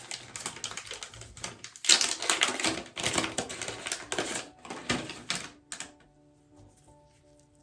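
Rapid, dense crackling and rustling of sterile packaging being handled and opened for a PDO mono thread. It stops about six seconds in, and soft background music with held tones comes in.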